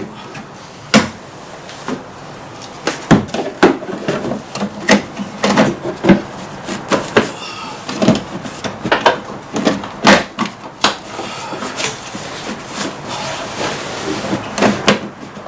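Irregular clicks, taps and knocks of hard objects being handled, a couple every second.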